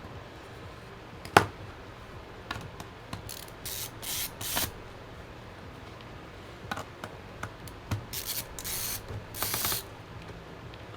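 Handling noise of a laptop being worked on: one sharp click, then scattered small clicks and short hissing, scraping bursts as the laptop is moved and handled on the bench.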